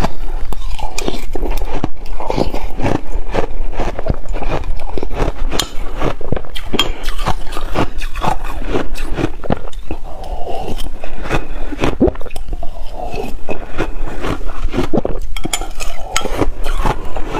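Close-miked crunching and chewing of mouthfuls of shaved ice: a dense run of sharp crackles, with a metal spoon clinking against a glass mug.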